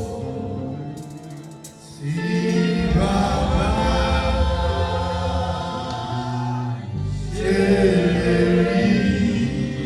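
Gospel music with choir singing over instruments, thinner and quieter at first and swelling into a full ensemble about two seconds in.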